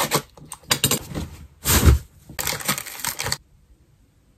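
Handling noise: a run of clicks, scrapes and rustles, with a louder rustle and a dull thud about two seconds in, then quiet for the last second.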